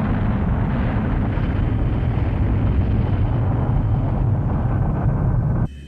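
Animated sound effect: a continuous deep rumble that cuts off abruptly near the end.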